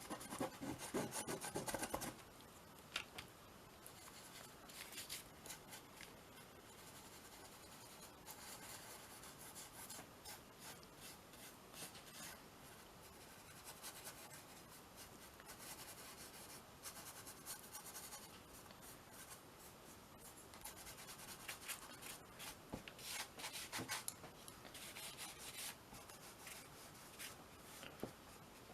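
Soft chalk pastel being rubbed onto a gesso-primed canvas: faint scratchy rubbing strokes, brisk in the first two seconds, then coming and going.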